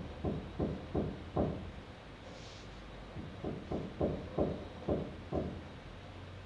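Muffled thuds coming through the ceiling from the flat above, about three a second: a run of five, then after a pause of about two seconds a second run of about eight.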